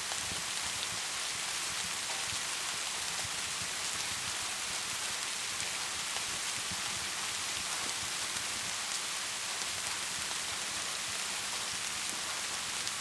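Steady rain falling, an even dense hiss, with a wood fire crackling faintly in small ticks beneath it.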